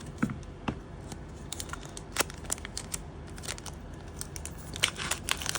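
Foil booster-pack wrapper crinkling and tearing as it is opened, in irregular sharp crackles.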